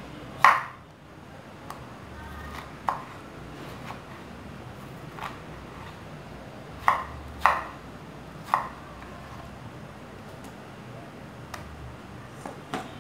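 A kitchen knife knocking on a wooden cutting board as a kiwi is cut, about seven sharp knocks at irregular spacing, the loudest about half a second in, over faint steady background noise.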